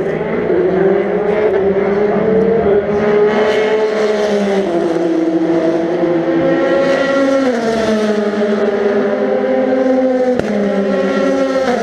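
Endurance racing cars running on the circuit, several engine notes overlapping, their pitch rising and then stepping down at gear changes a few times.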